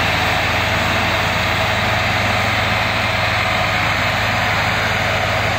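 Diesel engines of a red Massey Ferguson 385 and an orange Al-Ghazi tractor running steadily under load as they pull a loaded sugarcane trolley.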